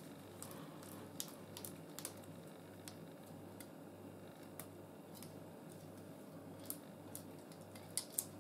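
Faint, irregular ticks and small clicks from gloved hands winding thread and thin wire around a baited fishing hook, with two sharper clicks near the end, over a steady low electrical hum.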